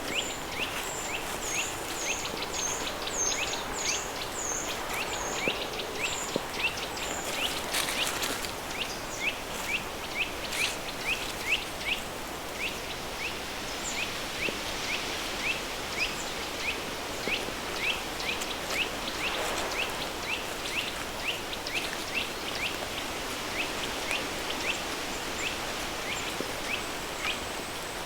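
River stream ambience under a steady hiss of added pink noise. Bird chirps repeat about twice a second throughout, and a higher, falling bird call repeats over the first several seconds.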